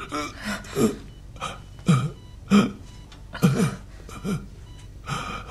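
An elderly man's short, strained groans and gasps, about nine of them, each dropping in pitch, coming every half second to a second: pained breathing from broken ribs.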